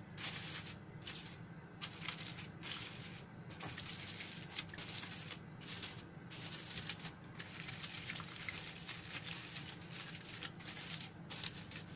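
Aluminium foil crinkling in irregular bursts as hands press and crimp it around the rim of a plate.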